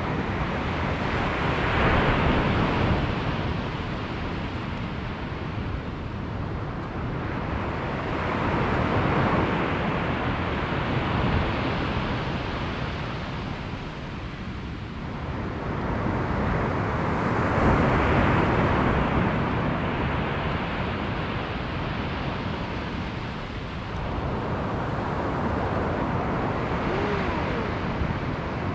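Sea surf breaking on the beach, swelling and falling in slow surges every seven or eight seconds, with steady wind noise on the microphone.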